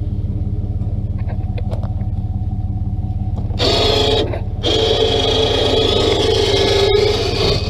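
12-volt electric winch on a Harbor Freight truck crane running under load: a short steady whine about three and a half seconds in, a brief stop, then a longer run of about three seconds. A vehicle engine idles steadily underneath throughout.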